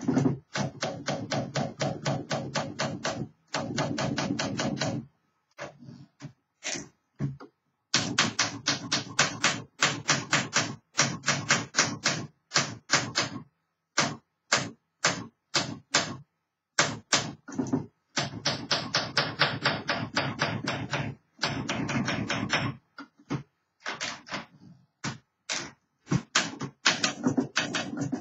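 1964 Olympia SM9 manual portable typewriter being typed on: fast runs of sharp key strikes, several a second, broken by short pauses and a few single strokes.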